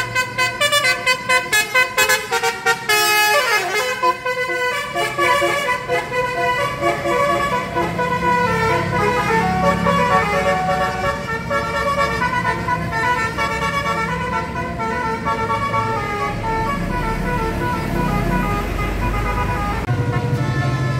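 Indonesian bus 'telolet' multi-tone horn playing a tune: a quick run of short toots, a falling slide about three seconds in, then held notes stepping from pitch to pitch. The bus engine runs underneath as a low rumble.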